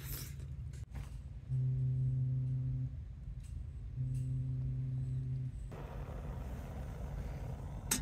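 Two long blasts of a low, steady horn, each about a second and a half, over a constant low rumble. Near the end a steady hiss sets in.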